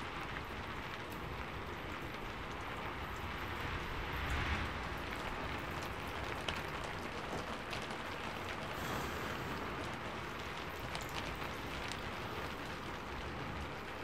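Heavy rain falling steadily as a constant hiss, with a few small clicks on top.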